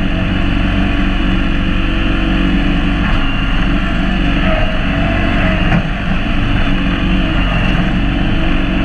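John Deere X728 garden tractor engine running steadily, heard close up from the hood, as the tractor moves with a log on its front fork.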